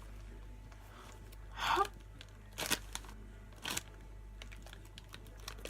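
Plastic packaging being opened by hand: three short crinkles about a second apart over a low steady hum.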